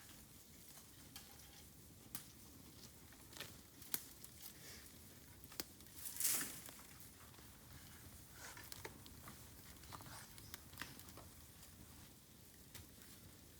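Bamboo burning on an open fire, crackling with scattered sharp pops and clicks. About six seconds in there is one louder, half-second hissing burst.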